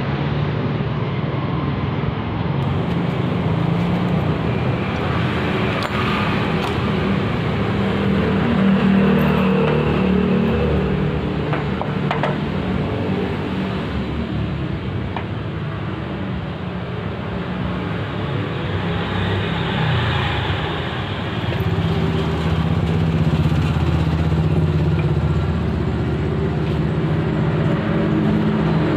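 An engine running continuously, its speed sagging a little in the middle and picking up again near the end.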